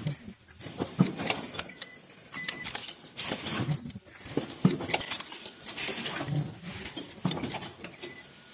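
Automated cup-mask back-end machine running: irregular mechanical clicks and knocks over a steady high hiss, with a short high tone three times, about every three seconds.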